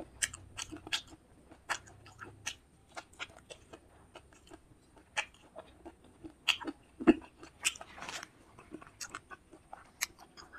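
Close-miked chewing and mouth smacking of a person eating fish curry with rice: a stream of irregular sharp clicks and smacks, a few louder ones about two-thirds of the way through.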